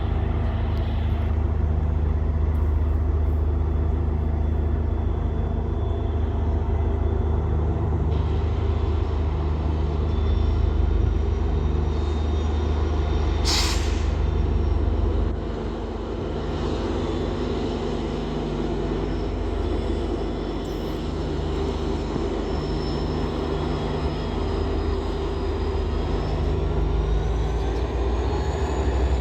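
WDP4D diesel-electric locomotive running with a steady low engine drone. A short sharp hiss comes about halfway through, and the low rumble eases just after it.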